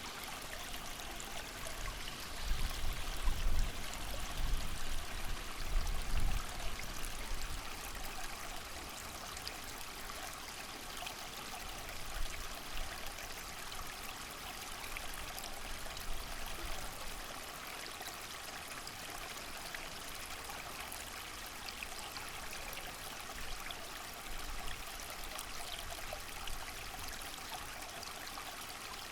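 Steady rush of a small creek mixed with rain and wind, with low gusts of wind swelling from about two to seven seconds in.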